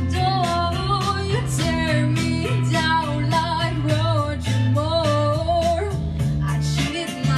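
A young woman singing a song into a microphone over a backing track, with guitar strokes and a repeating bass line beneath the vocal.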